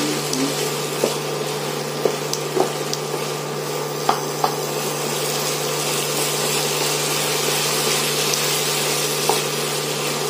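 Wooden spatula stirring drumstick pieces and grated coconut in a nonstick kadai, with scattered light knocks of the spatula against the pan, over a steady hum and hiss.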